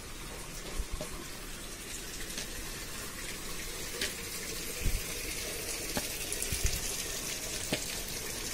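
Steady rush of flowing water, with a few dull footsteps on stone steps.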